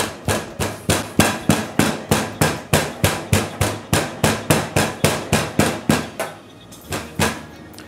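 A metal meat pounder striking a breadcrumb-coated bone-in pork cutlet on a metal tray of breadcrumbs, about three blows a second, flattening the meat to a few millimetres. The rapid blows stop about six seconds in, followed by two last strikes a second later.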